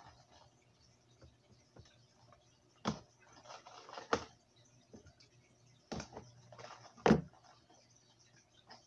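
Hard plastic lure package being handled and opened: about four sharp clicks and snaps, with softer plastic crinkling between them.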